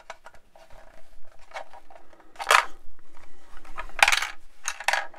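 The plastic fuselage halves of a 1/24-scale Airfix Hellcat kit, held together with masking tape, being pressed and turned over in the hands. The sound is irregular light clicks, rubs and scuffs of hard plastic, with louder scrapes about two and a half and four seconds in and a quick run of them near the end.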